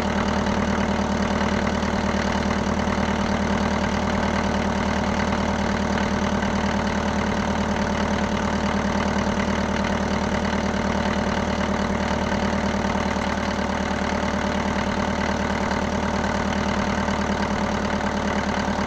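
Mercedes-Benz W124's four-cylinder petrol engine running steadily at a slightly raised idle, its throttle held open by a cable, while water is sprayed into the open intake to decarbonize it.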